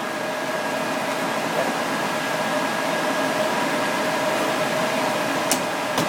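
Steady ventilation hum and hiss with a constant low tone. A faint click comes near the end.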